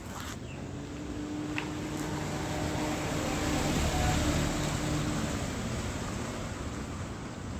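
A motor passing by: a steady hum with noise that swells to its loudest about four seconds in and then fades, its pitch dropping slightly as it goes.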